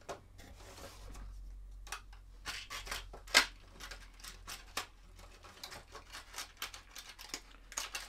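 Clicks and crinkles of a clear plastic blister pack being handled as a small crankbait lure is pushed back into it, with one sharp plastic click about three and a half seconds in.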